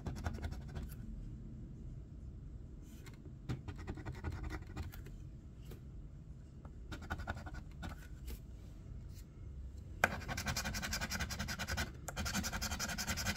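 A coin scratching the latex coating off a bingo scratch-off lottery ticket: scattered short rubs at first, then steady, louder, rapid back-and-forth scratching for the last three seconds.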